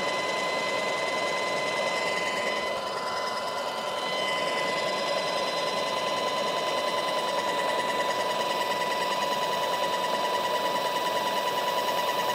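Graco Magnum ProX17 airless paint sprayer's electric piston pump running with a steady high whine while the spray gun is held open to prime the hose with stain.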